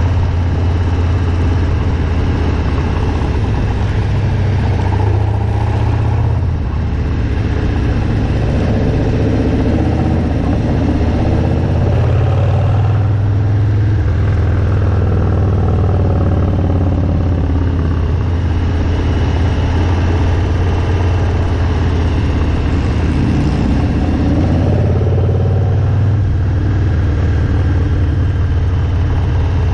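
Harley-Davidson Milwaukee-Eight V-twin motorcycle engine running under way, its low note swelling and easing a few times as the throttle opens and closes.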